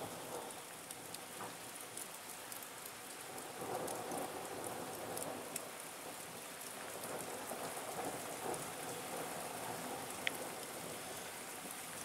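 Steady rain falling in a thunderstorm, many drops pattering, with a rumble of thunder swelling now and then underneath. A single short tick sounds about ten seconds in.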